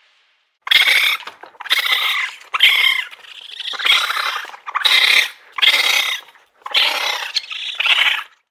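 Raccoon chittering: a string of about eight short calls, each under a second, with short gaps between them.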